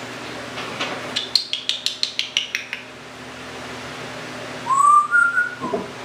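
Timneh African grey parrot making a quick run of about ten sharp clicks, then a short whistle that rises in two steps.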